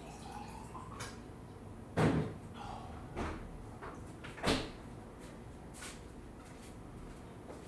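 A person moving about and handling things, with two louder clunks about two and a half seconds apart and a few lighter knocks between and after them.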